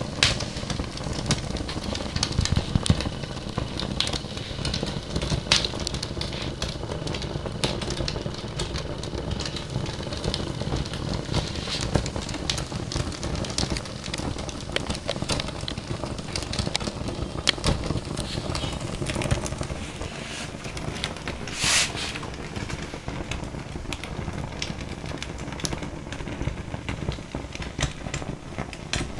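Fire crackling, with frequent sharp pops over a steady low rumble, and one brief hiss about three quarters of the way through.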